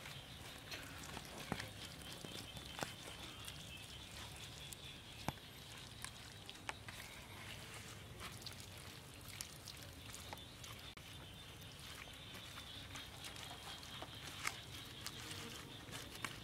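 Hands rubbing chili-garlic paste into raw chicken legs on a lotus leaf: faint soft handling sounds with scattered small clicks.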